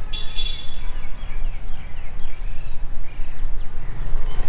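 Outdoor ambience: a steady low rumble, with a quick series of short bird chirps in the first two seconds.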